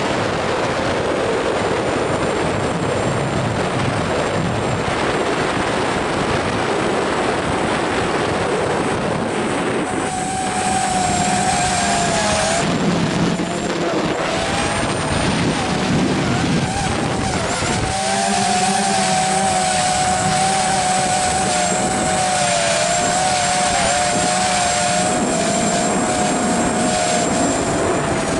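RC model aircraft's motor and propeller heard from its onboard camera, with heavy wind noise on the microphone. From about ten seconds in a steady motor tone comes through the rush and wavers up and down in pitch as the throttle changes.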